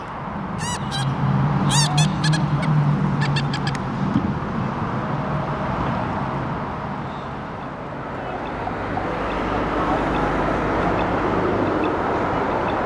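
Geese honking, a quick series of calls in the first few seconds over a low steady hum, then steady city street traffic noise building from about eight seconds in.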